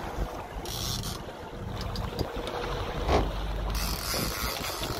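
Fishing boat's engine running with a steady low rumble. Wind gusts hiss on the microphone about half a second in and again near the end.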